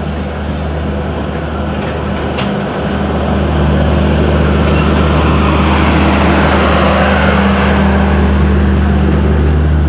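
Diesel generator sets of an end-on-generation luggage brake and generator car growling as the car rolls past, a steady low drone that gets louder about three and a half seconds in, over the running noise of the passing coaches.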